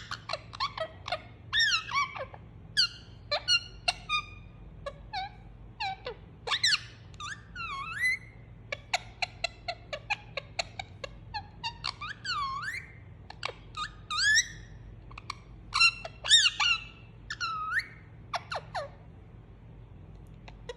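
Indian ringneck parakeet making a run of short squeaky chirps and ticks mixed with longer whistled calls that glide up and down in pitch. These are its contented, soothing sounds while being cuddled.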